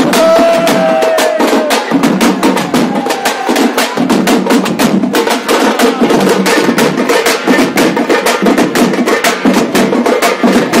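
A group of tamate frame drums, beaten hard with sticks in a fast, driving street-procession rhythm for Tapanguchi dancing. A held high tone sounds briefly near the start.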